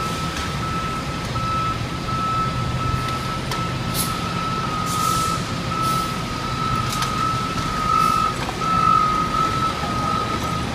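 A heavy vehicle's reversing alarm sounds a high, nearly continuous tone over a diesel engine's rumble. Short hissing bursts come about once a second through the middle.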